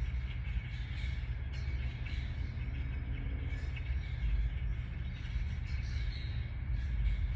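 Outdoor ambience: a steady low rumble that swells a little twice, with faint bird calls above it.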